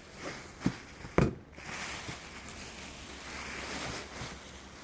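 A few light knocks, then about three seconds of steady rustling as a dress is handled and moved.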